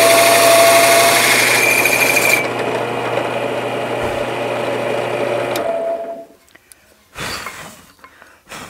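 Drill press running a Porter-Cable hole saw through wood, a steady hum with a high squeal from the cut. About two and a half seconds in the cutting hiss drops away while the motor keeps running, and about six seconds in the machine stops; a couple of short knocks follow.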